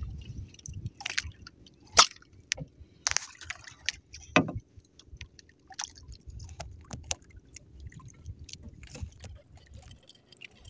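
Water lapping and sloshing against a small outrigger fishing boat, with scattered sharp clicks and knocks, the loudest about two seconds in.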